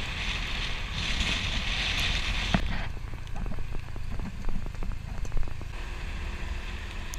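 Motor scooter riding along a road: its small engine runs steadily under a rush of wind noise, with a run of light clicks and knocks in the middle.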